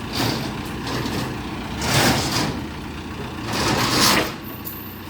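A heavy engine running steadily, with two swells of hissing noise about two and four seconds in.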